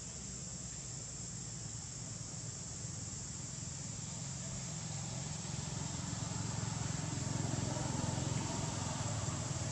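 Steady high-pitched drone of insects, with a low rumble underneath that grows louder through the second half.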